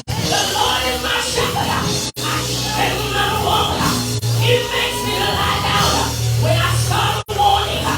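Loud church worship music with sustained bass notes under a congregation shouting and yelling. The sound cuts out for an instant twice.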